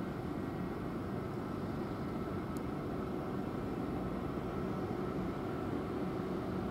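Train running steadily: an even low rumble with a faint high hum, with no rise or fall.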